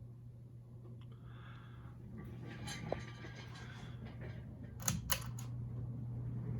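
Casablanca Lady Delta ceiling fan running in reverse with a steady low motor hum, growing gradually louder. Two quick sharp clicks come close together about five seconds in.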